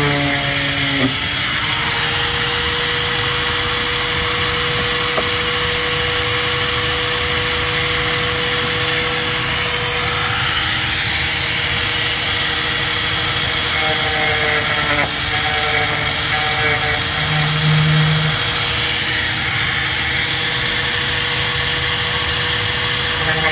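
A handheld power tool runs steadily with a whine, cutting a rough hole in a C5 Corvette's composite rear body panel for a Z06-style brake vent.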